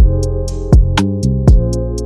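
Electronic background music: a steady hip-hop-style beat with kick drums and hi-hat ticks over bass and synth chords.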